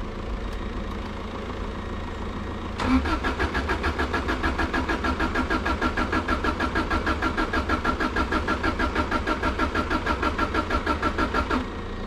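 Subaru Impreza's flat-four engine being cranked on the starter for about nine seconds, a rapid even beat that never catches and runs. It has a heavy misfire and won't fire up; the owner smells fuel, thinks it is flooding, and suspects the spark plugs and their brittle leads.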